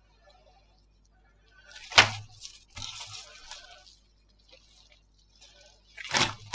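Slime being pressed and squished by hand: a sharp click about two seconds in, a moment of soft crackling, and another louder burst near the end.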